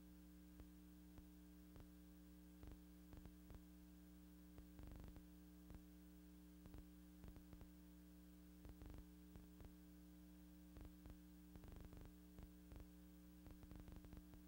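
Near silence: a faint, steady electrical hum with scattered clicks and crackles. No sound of the factory work can be heard.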